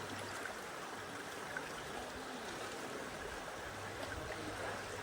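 Steady rush of river water flowing past a bamboo raft.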